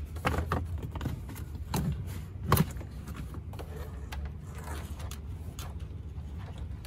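2011 GMC Sierra 1500's plastic kick panel trim being handled and pressed into place over wiring: scattered light knocks and plastic clicks, with one sharp click about two and a half seconds in, over a steady low hum.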